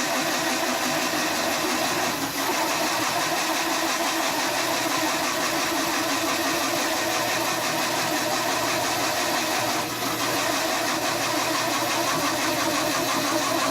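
Belt-driven drill press running steadily under load while it drills through steel plate, dipping briefly twice.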